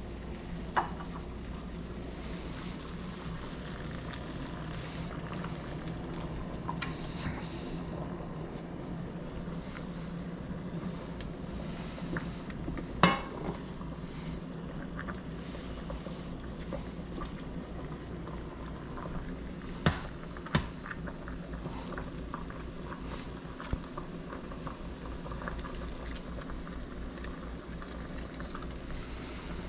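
Water boiling in a pot: a steady bubbling hiss over a low steady hum, with a few sharp knocks or clinks of cookware, the loudest about 13 seconds in and two close together around 20 seconds.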